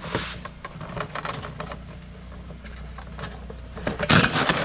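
Briggs & Stratton lawn mower recoil starter being handled: light clicks and scrapes of a screwdriver against the plastic pulley. About four seconds in comes a loud burst of rattling as the pulley is released and the freshly tensioned recoil spring spins it back, winding up the rope.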